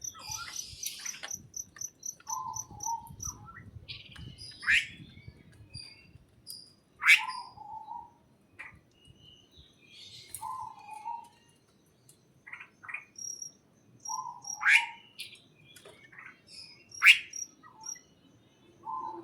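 Birds chirping and calling, several short call types overlapping, with four loud upward-sweeping calls standing out; a rapid, even series of high pips at the start.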